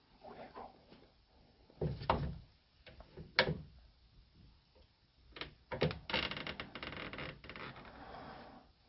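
A few separate knocks, then a rattling clatter of hard objects about six seconds in that tails off into a softer rustle.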